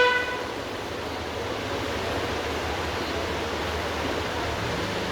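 A short electronic beep right at the start, then a steady rushing noise.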